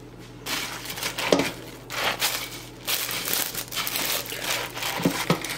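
A silicone spatula stirring moist stuffing mix around frozen chicken breasts in a plastic slow cooker liner: the crumbs crunch and the liner crinkles with each stroke, starting about half a second in.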